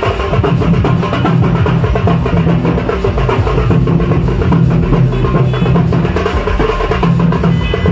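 Loud music driven by drums and percussion, with a steady beat and no pause.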